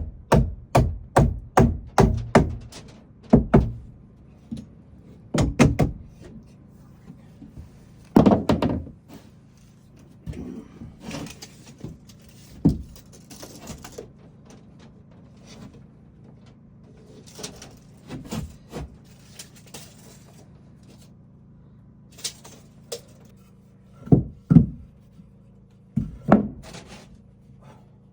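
Wooden cabinet-door work: a quick run of knocks on wood, about three a second, then scattered single knocks and thuds with short scraping or rubbing sounds between them.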